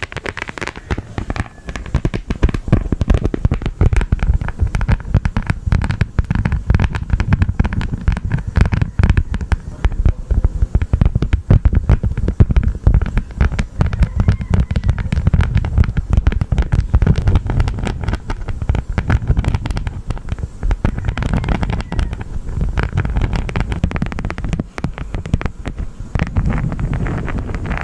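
Honeycomb crunching and crackling close to the microphone: a dense, continuous run of sticky wax crackles and clicks with a heavy low rumble underneath.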